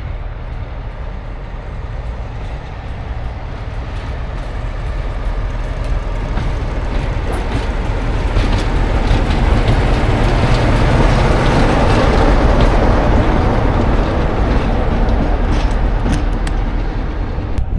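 Diesel train running, its engine rumble and the rush of its passing getting louder over the first half and staying loud, with a scatter of sharp clicks in the second half.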